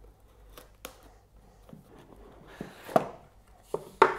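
Hands opening a small cardboard product box, sliding out the inner tray, with light rustling and a series of small knocks and taps of the box against a cutting mat. The two loudest knocks come about three seconds in and just before the end.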